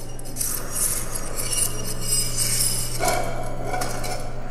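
Dishes and cutlery clinking and rattling in a continuous jumble of small knocks, over a low steady hum.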